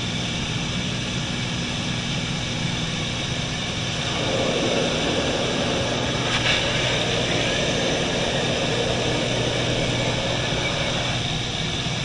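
Light aircraft's propeller engine droning steadily, heard inside the cabin. From about four seconds in a louder rushing noise joins it for about seven seconds, with one brief click in the middle.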